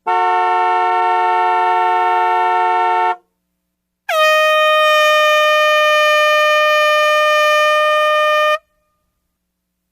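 Two long horn blasts: first a steady blast of about three seconds sounding several notes at once, then after a second's gap a single-pitched blast of about four and a half seconds that dips slightly in pitch as it starts.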